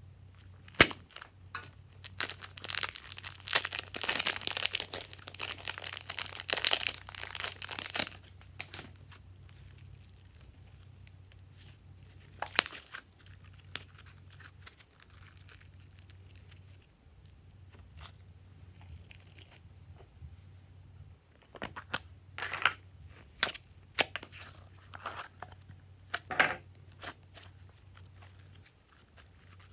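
Glossy pink slime being pulled apart and stretched by hand, with sticky crackling and tearing sounds that are dense over the first several seconds. A short burst follows later, then a few scattered sharp clicks and pops near the end. A faint steady low hum runs underneath.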